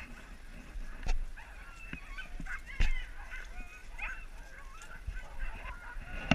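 Harnessed sled huskies whining, with many short rising and falling high-pitched calls, while the team stands waiting. Two sharp knocks, about one and three seconds in.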